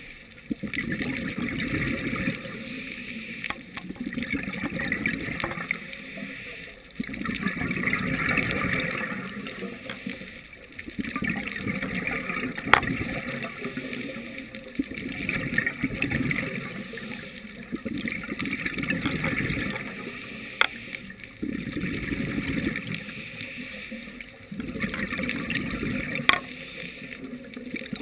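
Scuba diver breathing through a regulator underwater: a hissing inhale alternates with a bubbling exhale, one breath about every four to five seconds. A few sharp clicks stand out over the breathing.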